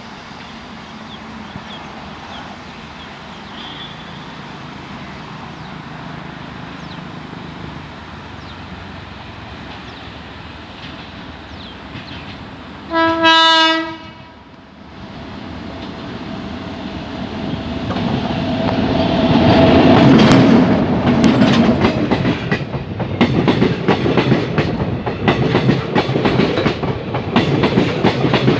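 Indian Railways WAP-7 electric locomotive sounds its horn in one short blast about halfway through, then the express train draws near and passes, getting louder, with the wheels clattering and rattling fast and unevenly over the rail joints.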